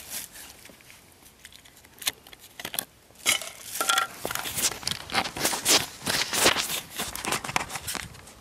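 Plastic food packaging being handled and opened: a quiet start, then from about two seconds in a dense run of sharp crinkling and crackling.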